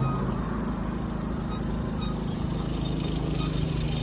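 Small petrol vehicle engine running steadily under load as it labours up a mountain pass at over 5000 m altitude, short of power in the thin air, with a steady hiss of wind and road noise.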